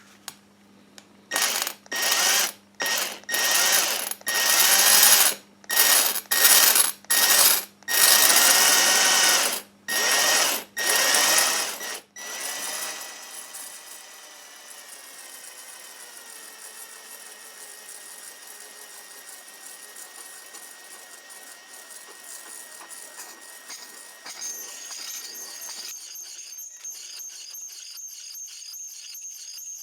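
Power drill turning an adjustable single-arm tile hole cutter into ceramic tile. For the first twelve seconds or so it runs in about ten short loud bursts as the trigger is pulsed on and off. After that it runs on more quietly and steadily, with a thin high whine.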